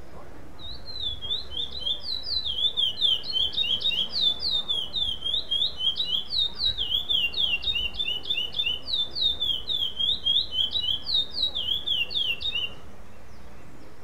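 Male chestnut-bellied seed finch (curió) singing one long unbroken song of quick, falling whistled notes. It starts about half a second in and stops about a second before the end. This is the contest song style known as 'sem repetição' (without repetition).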